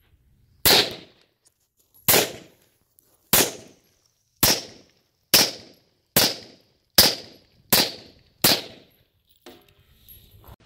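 FK BRNO 7.5 Field Pistol fired in a steady string of nine shots, the pace quickening from about one every second and a half to more than one a second as the magazine is emptied.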